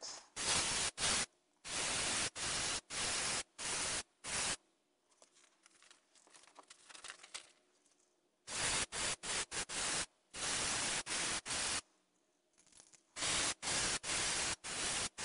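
Airbrush spraying paint in short bursts of hiss, each cut on and off sharply by the trigger: a run of bursts, a pause of a few seconds, then two more runs.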